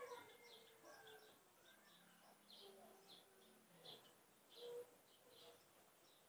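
Near silence with faint birds chirping: short high chirps repeating every half second or so, with a few soft lower calls.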